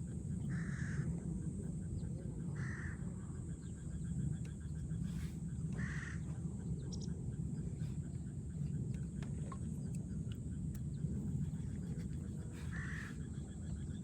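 A crow cawing: short, harsh calls in pairs, about two seconds apart, with a long gap in the middle. A steady low rumble runs underneath.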